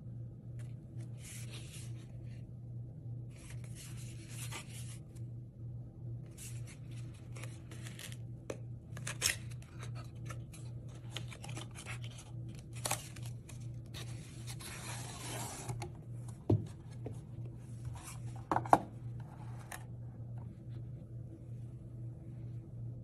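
Cardboard packaging being handled: a kraft paper box rubbing and scraping as it is opened, with a longer sliding scrape as the glasses case comes out. Several sharp taps and clicks, the loudest in the last third, sit over a steady low hum.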